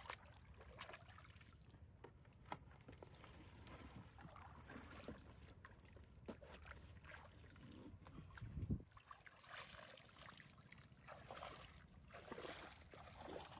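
Water sloshing and splashing irregularly as a person wades through shallow muddy creek water, with a brief low thump about two-thirds of the way through.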